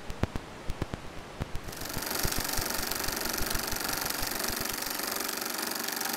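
Film projector sound effect: scattered crackling clicks over a faint hiss, then from about two seconds in a steady, fast mechanical rattle with hiss.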